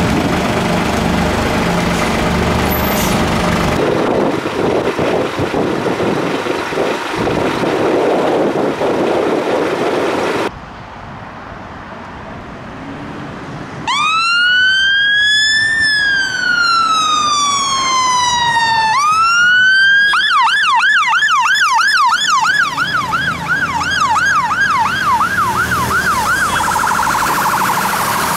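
Fire engine's electronic siren starting up: a slow wail that rises, then falls for several seconds, then rises again and switches to a fast yelp of about three sweeps a second. Before it, vehicle engine and road noise, broken by two abrupt changes.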